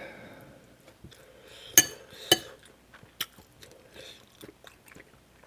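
A person eating kimchi stew close to the microphone: soft chewing, broken by two loud sharp clicks about two seconds in and a smaller one a second later.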